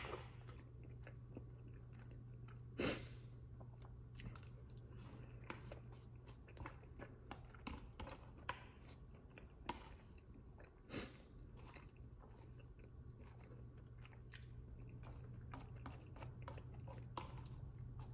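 Faint chewing of a soft chicken enchilada bake, with scattered light clicks of a metal fork against a plastic bowl, the loudest about three seconds in. A steady low hum runs underneath.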